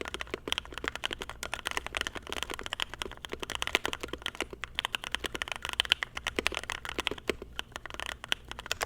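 Typing on a renovated Space65 Voyager mechanical keyboard with Marshmallow linear switches, PBT keycaps and a carbon fiber plate, O-ring mounted, with a tape-modded PCB and case foam: a fast, steady run of keystrokes, several a second.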